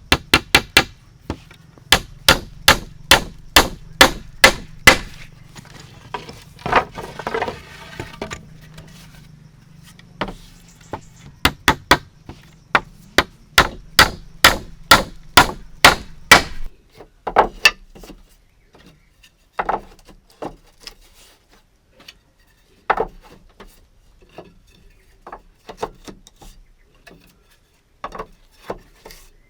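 Repeated blows of a tool on wood: quick runs of about three strikes a second, then slower, scattered knocks in the second half.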